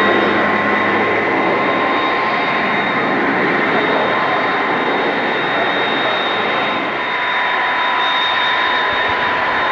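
McDonnell Douglas DC-10 jet engines running at low taxi power: a steady rushing noise with a high whine held at a few fixed pitches.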